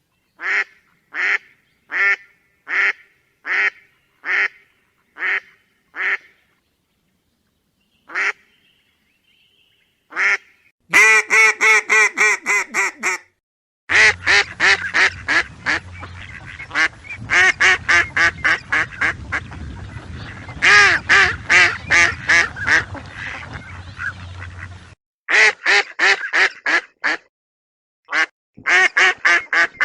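Ducks quacking: a run of single quacks about one every 0.8 seconds, then after a short pause long rapid strings of quacks, with a low steady hum underneath through the middle stretch.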